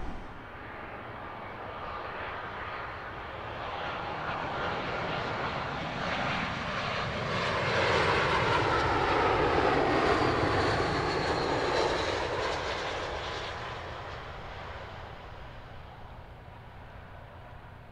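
Jet airliner engines as a jetBlue plane passes by. The sound grows to a peak in the middle, with a sweeping, shifting tone, then fades away.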